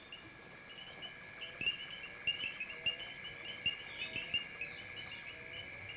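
Night chorus of frogs and insects in waterlogged African savanna: a steady high-pitched trilling background with many short chirps repeating a few times a second.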